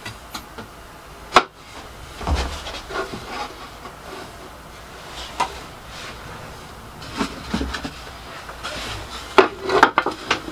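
Plywood pieces being handled and set against the sander's table: scattered knocks and clacks of wood with scraping in between. There is a sharp knock about a second and a half in and a quick run of knocks near the end.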